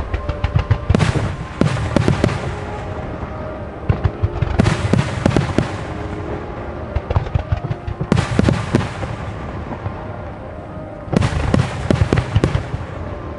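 Starmine fireworks barrage: shells booming and bursting, with four dense volleys of crackling cracks a few seconds apart, over the festival's music playing from loudspeakers.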